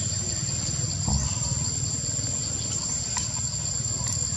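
Steady, high-pitched insect chorus, with a low rumble underneath and a few faint clicks near the end.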